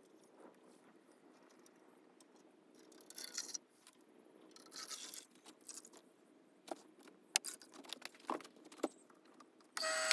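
Quiet handling noises: two short rustling scrapes, then a few sharp small clicks and clinks, as of small hard objects being handled. Just before the end a loud, steady sound made of several held tones starts abruptly.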